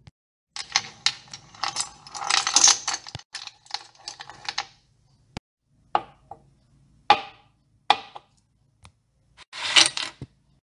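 Kitchen knife chopping on a cutting board: a quick run of chops and clatter for the first few seconds, then single chops about a second apart.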